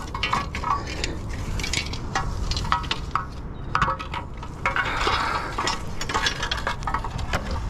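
Rusty steel rods, rebar pulled from a river, clinking and scraping against each other as they are gathered up by hand, with many short irregular clinks and a longer scrape about five seconds in. A steady low wind rumble on the microphone runs underneath.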